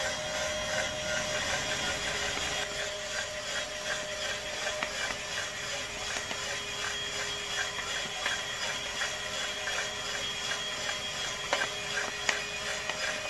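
Homemade drum coffee roaster running: a steady mechanical hum with a regular ticking about three times a second as the drum turns, and a few sharper clicks near the end.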